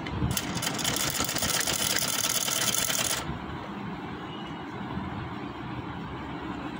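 Sewing machine running steadily, stitching lace down onto fabric. A louder, hissier stretch runs from just after the start to about halfway through, then the machine settles back to its steady run.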